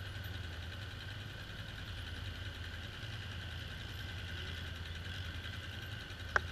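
Polaris Sportsman ATV engine running steadily at low trail speed: a low drone with a fainter whine above it. A single sharp knock comes near the end.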